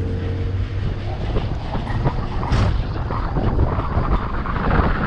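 Wind buffeting the microphone of a camera on a bass boat being towed on its trailer along a road, over a low rumble from the road and the tow. The wind noise grows stronger over the last couple of seconds.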